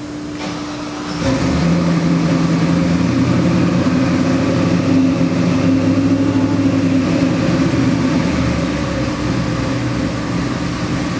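Whipple-supercharged 416 cubic inch Chevy LS V8 on an engine dyno starts up about a second in, then runs steadily.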